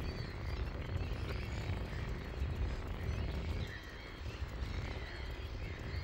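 Wind buffeting the phone's microphone, a steady low rumble that rises and falls in gusts. Faint high chirping calls sound behind it.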